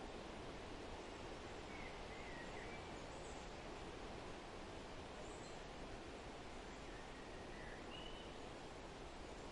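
Steady wind rustling through forest trees, with a few faint, short bird chirps about two seconds in and again near the end.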